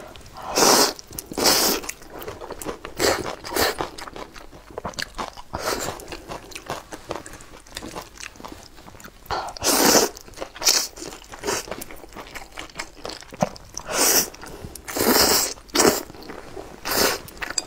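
Close-miked eating of saucy noodles: loud slurps of noodles being sucked in, a few seconds apart, with wet chewing and lip-smacking clicks between them.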